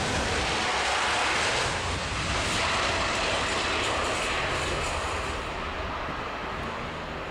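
Jet roar from a Boeing 747-8's four GEnx turbofan engines at high thrust as the airliner rolls down the runway on its take-off run. The steady roar eases slightly as the jet moves away near the end.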